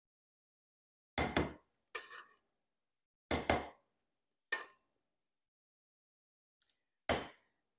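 A spatula scraping and knocking against a stainless steel mixing bowl while the last of the key lime filling is scraped out: five or six short clinks spaced about a second apart, the first a quick double knock.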